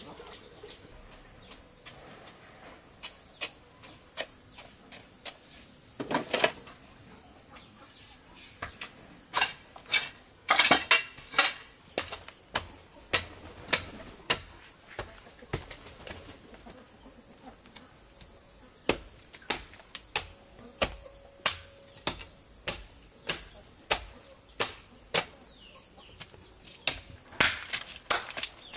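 A hand tool strikes repeatedly, sharp knocks in runs at about two a second, over a steady high insect drone.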